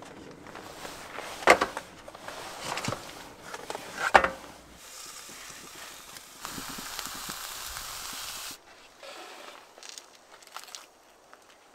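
Clatter and knocks of gear being handled at a portable gas flat-top griddle, with two sharp knocks about a second and a half and four seconds in, then a steady hiss for about two seconds that cuts off sharply.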